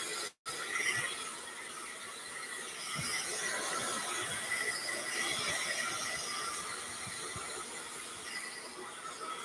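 Hair dryer running on high: a steady blowing rush with a thin whine from its motor. The sound cuts out completely for a moment just after the start.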